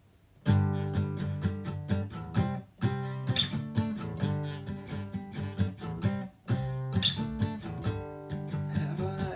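Acoustic guitar strummed in a steady rhythm of chords, starting about half a second in, with two brief breaks between phrases: a song's instrumental intro.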